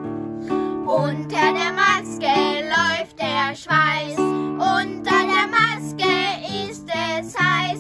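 Acoustic guitar playing held chords as accompaniment, with two boys singing a melody over it from about a second in.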